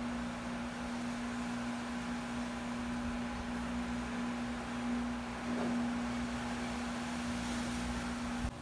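A steady low hum: one unwavering tone over faint hiss, cutting off abruptly just before the end.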